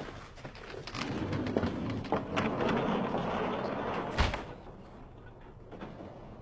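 A single heavy thump about four seconds in, over a rustling, noisy background that dies down after it.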